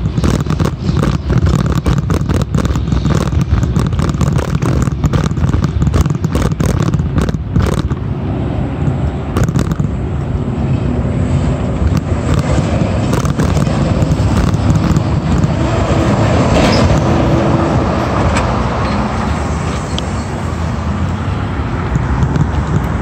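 Steady low rumble of a bicycle ride along a sidewalk beside road traffic. Dense rattling clicks for about the first eight seconds give way to a smoother rumble.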